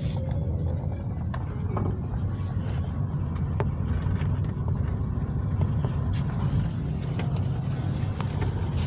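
Car driving along, heard from inside the cabin: a steady low rumble of engine and tyres, with a few light clicks.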